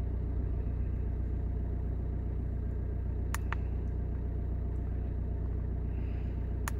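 Skoda Fabia 1.9 TDI PD100 four-cylinder diesel engine idling steadily, heard from inside the car. Two short clicks of the handheld OBD scanner's buttons, one about halfway through and one near the end.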